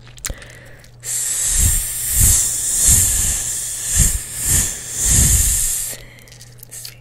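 A long, drawn-out 's' hiss made with the mouth right at the microphone, with about six soft puffs of breath thudding on the mic during it. It starts about a second in and cuts off about a second before the end.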